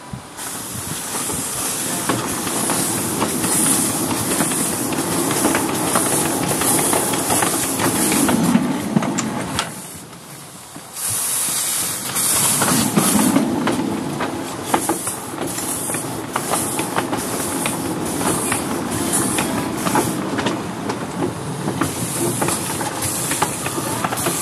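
Steam hissing from a 7¼-inch gauge GWR 1101 dock tank locomotive standing in steam, with a rumble and fine clicking of rail wheels. The hiss drops away for about a second some ten seconds in, then resumes.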